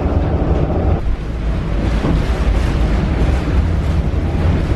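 Old tram in motion, heard from inside the passenger car: a loud, steady, deep rumble of the running gear on the track with a noisy haze above it.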